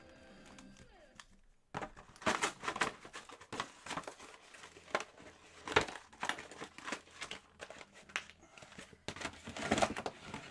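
Plastic shrink-wrap crinkling and tearing as it is stripped from a sealed hobby box of trading cards, in quick irregular bursts starting about two seconds in.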